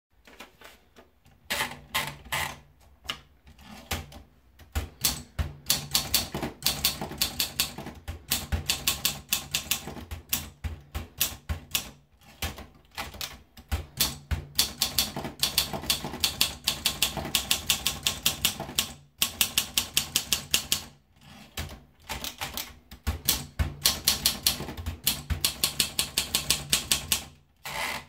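Olympia SM2 manual portable typewriter being typed on: quick runs of key strikes, type bars snapping against the platen, broken by short pauses.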